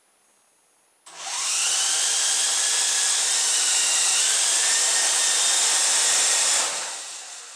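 Electric motors and rotor blades of a twin-rotor (Chinook-style) RC helicopter spinning up suddenly about a second in and running with a loud whine and rush of rotor air, the pitch gliding up early and wavering midway, then winding down and fading near the end.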